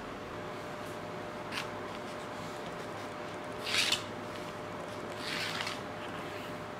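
Pencil scratching short marking strokes on an oak board: a few brief scratchy strokes, the loudest a little after the middle, over a steady background hum.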